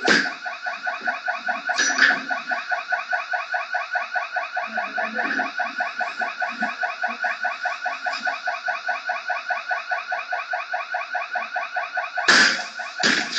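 Shop intruder alarm sounding a continuous, rapidly pulsing electronic tone. A few loud bangs cut through it, most of them near the end, as the glass display counter is struck.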